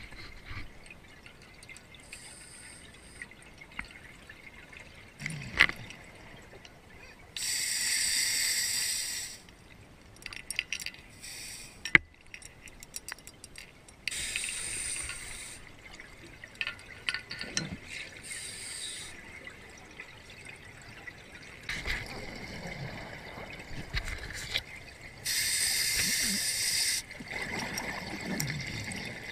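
Underwater recording of a scuba diver's regulator exhaust: bursts of exhaled bubbles, each about two seconds long, come three times several seconds apart over a low hiss. Two sharp knocks of gear or the camera housing are heard, the second one loud.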